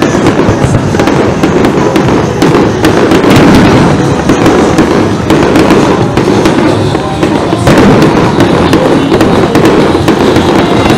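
Aerial fireworks going off, with many bangs and crackles in quick succession and no break.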